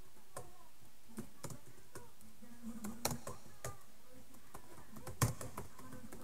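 Typing on a computer keyboard: irregular, spaced keystrokes, with two louder key strikes about three and five seconds in.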